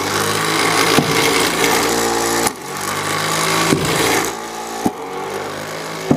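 A robot flywheel shooter's motor running with a steady whine, broken by four sharp thumps as wiffle balls are launched or land.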